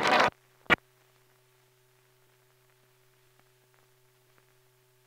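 Brass-led music from an old film soundtrack cuts off abruptly just after the start, followed by a single sharp click. Then near silence with a faint steady hum and light crackle.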